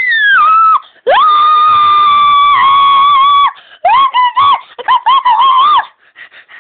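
High-pitched screaming: the tail of one scream falling away, then one long scream held at a steady pitch, then a quick run of short wavering squeals.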